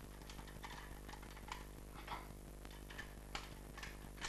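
Quiet room with a steady low hum and about half a dozen faint, short clicks and taps scattered through it.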